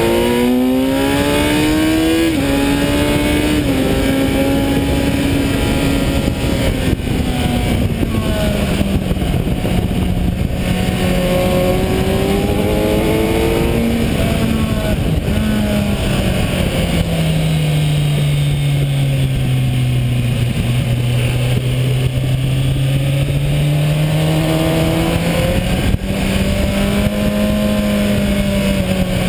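Kawasaki Ninja 1000's inline-four engine under way at speed. The engine note rises and drops in a step with an upshift about two seconds in, sinks to its lowest in the middle, then climbs again toward the end, over a steady rushing noise.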